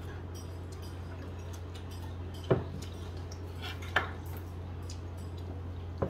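Two sharp clinks of tableware at the table, about a second and a half apart, over a steady low hum.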